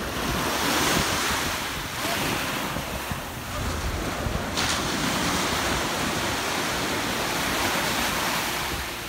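Small waves breaking and washing up a sandy shore, the surf hiss swelling and easing several times, with wind buffeting the microphone.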